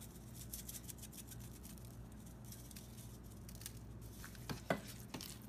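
Faint rustling, patting and crackling of hands rubbing seasoning into a raw pork loin, with a sharper click near the end.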